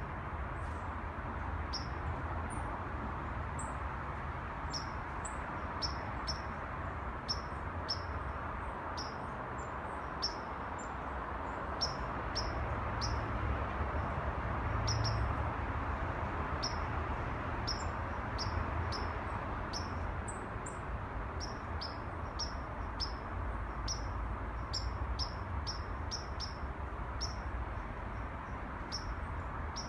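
Small birds chirping, many short high notes at an irregular pace, over a steady hum of distant city traffic whose low rumble swells for a few seconds about halfway through.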